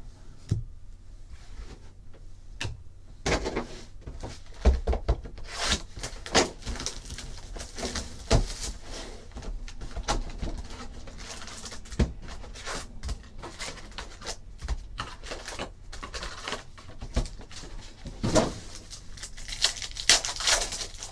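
Trading-card boxes and foil packs handled on a tabletop: scattered cardboard taps and knocks with crinkling wrappers, then a longer stretch of rustling and tearing near the end as a foil pack is pulled open.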